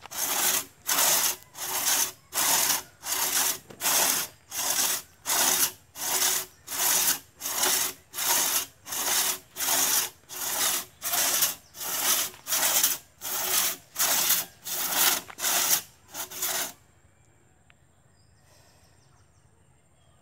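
Two-man crosscut saw being pulled back and forth through a felled log, each stroke a rasp of the teeth in the wood, in a steady even rhythm. The sawing stops abruptly about three-quarters of the way through.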